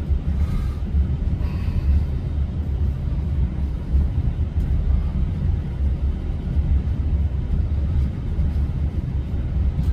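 Steady low rumble with no distinct events, holding at an even level throughout.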